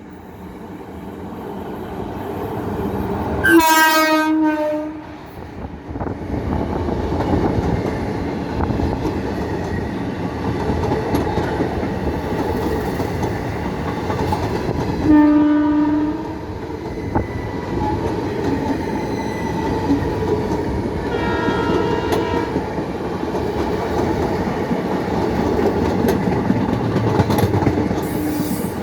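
Indian Railways express train approaching and running past: the locomotive horn blasts loudly about three and a half seconds in and again for about a second around fifteen seconds in. Between and after the blasts come the steady rumble and clickety-clack of the coaches on the rails.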